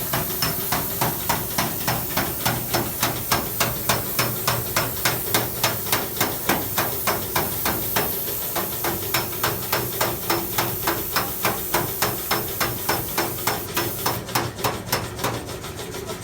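Rhythmic strokes of hand work on a microwave's sheet-metal casing, about three a second, over a low steady hum.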